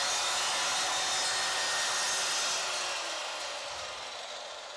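Handheld electric circular saw running as it is pushed along a wooden guide track through a board, with a steady motor whine and cutting noise that slowly fades over the last second or two.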